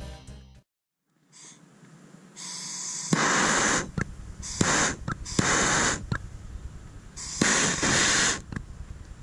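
Long-wand gas torch firing in a series of short hissing blasts of flame, each under a second, the loudest about three, five and a half and seven and a half seconds in. The flame is heating a plastic badge on a fibreglass hull to soften its glue.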